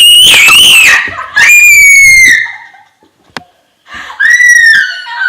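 Shrill, very loud screaming set off by a jump-scare prank: one scream about a second long, a second right after it, and a third about four seconds in, with a short click between them.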